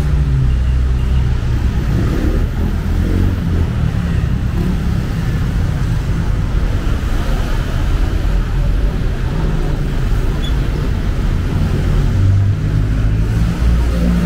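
Busy city street traffic, cars and motorbikes passing, with a steady low rumble.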